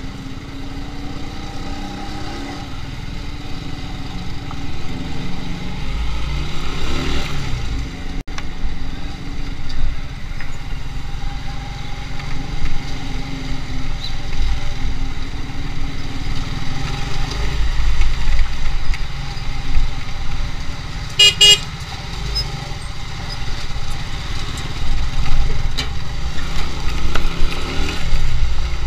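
Motorcycle engine running as it rides slowly, with a steady low rumble that grows louder in the second half. A vehicle horn gives one short honk about two-thirds of the way through.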